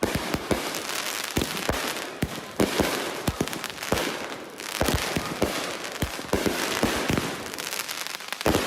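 Fireworks going off: many sharp bangs in quick, irregular succession over continuous crackling.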